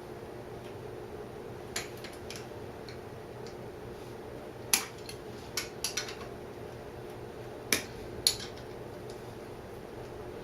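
Sharp metal clicks and clinks of pliers working a cotter pin out of the rear axle's castle nut. There are about eight separate clicks, the loudest about five seconds in, over a steady low hum.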